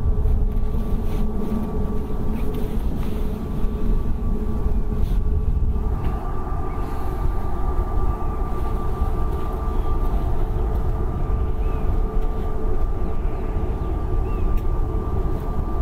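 Jet engines of an Airbus A321neo, CFM LEAP-1A turbofans, running at taxi power: a steady whine over a low rumble, the whine growing stronger about six seconds in as the aircraft taxis closer.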